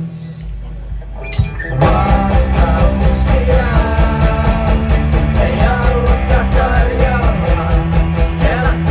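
Live rock band with electric guitars, bass and drums. A held low note rings for the first second and a half, then the whole band comes in loud, just under two seconds in, playing a fast, driving beat.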